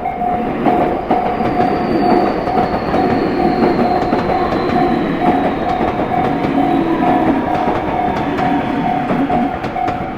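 Electric commuter train passing over a Japanese level crossing, its wheels clattering over the rail joints, while the crossing's electronic warning bell keeps ringing in an even, repeating beat.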